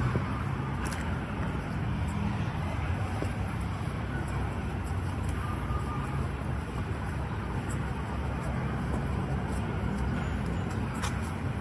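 Steady background rumble of traffic and market bustle, with a few faint clicks.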